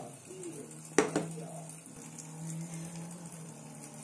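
Steady cooking hiss from the pot or pan, with two sharp knocks of cookware close together about a second in.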